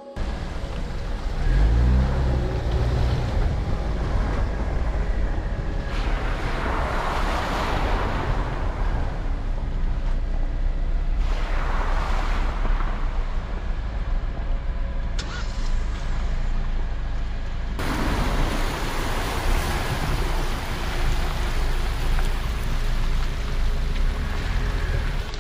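Jeep Wrangler driving a muddy off-road trail: a steady low engine and tyre rumble, with a brief rising rev about two seconds in. Swells of rushing, splashing noise come around six and eleven seconds in and again from about eighteen seconds in, as it goes through wet mud and puddles.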